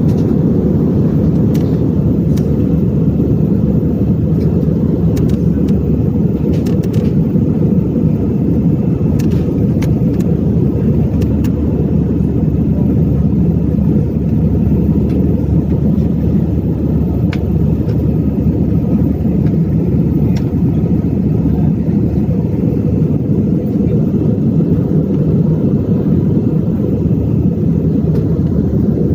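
Airliner cabin noise: a steady, loud low rumble of engines and rushing air that holds unchanged throughout, with a few faint clicks.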